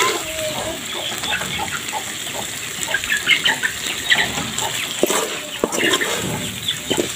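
A ladle stirring snail fry in a metal pot, scraping and knocking against the pan over a steady sizzle. Chickens cluck now and then in the background.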